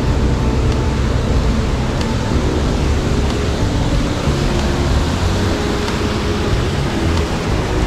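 Steady, loud rush of a small waterfall pouring over a dam spillway onto rocks.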